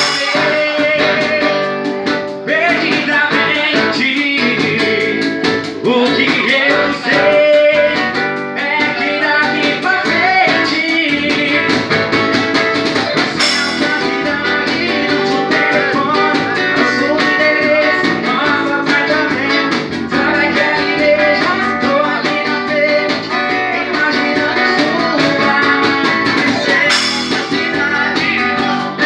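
Live band music: a male singer on a microphone over strummed acoustic guitar, electronic keyboard and a drum kit.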